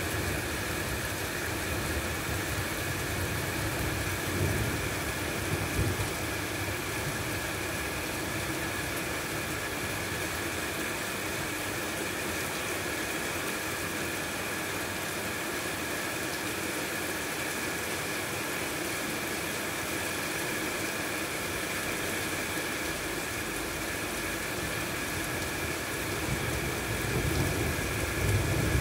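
Steady background hiss with a faint, constant high whine, and a low rumble of distant thunder swelling in near the end.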